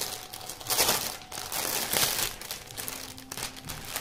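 Clear plastic bag crinkling and rustling as hands work it open, in irregular crackly bursts, loudest about a second in and again around two seconds in.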